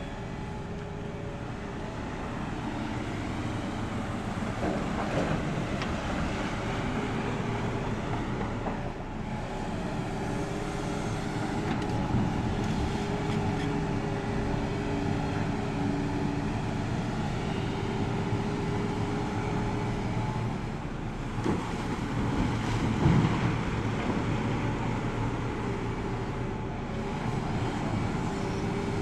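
Hidromek 390 excavator's diesel engine running, its pitch rising and falling as the load changes. A few knocks come through, the loudest about 23 seconds in.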